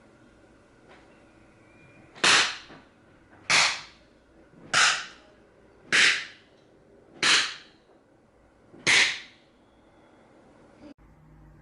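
Six sharp pops, one about every 1.2 seconds, from small party poppers being set off one after another.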